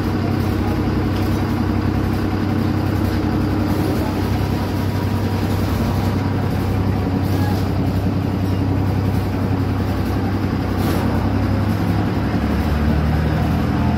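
Truck's diesel engine idling steadily close by, its low drone shifting slightly in pitch near the end.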